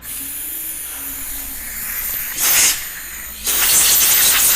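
Compressed-air gun blowing air onto a headlight to clear off dust: a steady hiss, a short louder blast about two and a half seconds in, then a louder continuous blast about a second later.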